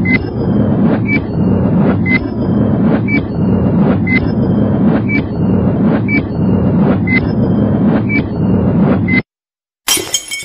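Countdown sound effect: a loud, dense low noise with a short high beep each second, ten beeps in all, that cuts off suddenly. About half a second later a sudden crash with high glassy ringing begins near the end.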